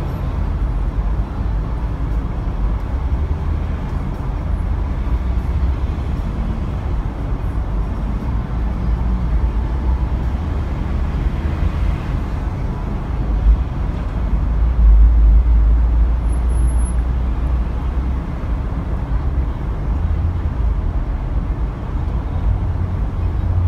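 City street traffic at an intersection: a steady low rumble of idling and passing vehicles, with a heavy diesel truck's rumble swelling to its loudest about two-thirds of the way through as it crosses.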